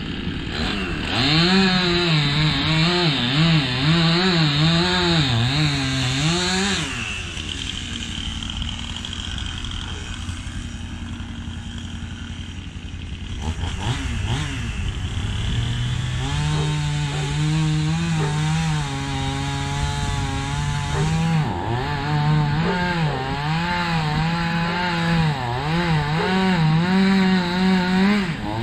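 Chainsaw cutting into the trunk of a large tree, its pitch dipping and rising as the chain bites and frees in the cut. For several seconds in the middle it drops to a lower, steadier run, then revs back up and cuts again.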